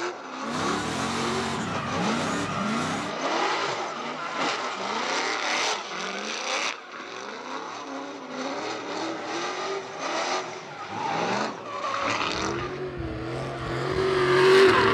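Audi A5 drift car's V8 engine revving up and down while the car drifts, with tyres squealing and hissing in the slide. Near the end the engine note climbs and holds, and this is the loudest part.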